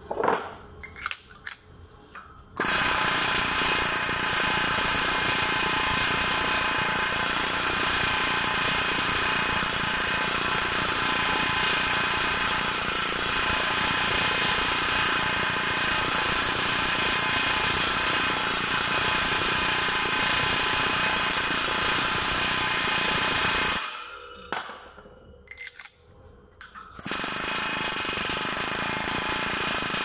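Boyer No. 1 pneumatic hammer driving a beading tool against the end of a boiler tube, rolling the tube end over onto the tube plate: a continuous rapid hammering that starts a couple of seconds in, breaks off for about three seconds near the end, then starts again.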